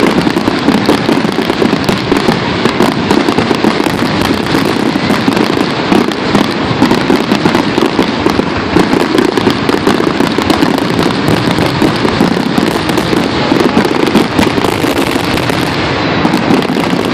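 Fireworks going off in a dense, continuous barrage: rapid overlapping bangs and crackles with no let-up.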